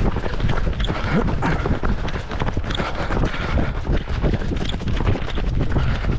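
Footsteps of running on wet asphalt, a steady rhythm of footfalls, with wind rumbling on the microphone of a camera carried at running pace.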